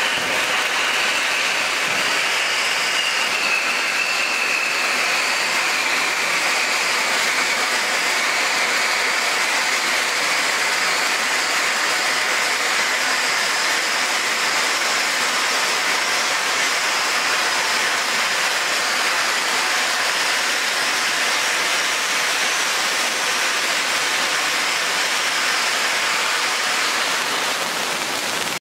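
Handheld silver ice fountain firework burning with a steady hiss of spraying sparks. A faint whistle-like tone in the hiss sinks slightly in pitch over the first several seconds. The hiss eases a little near the end.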